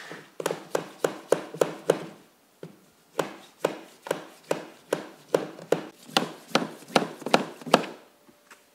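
Hammer tapping on a cedar-board wall, about twenty sharp knocks at two to three a second with a brief pause after the first few, working a board a little further into place.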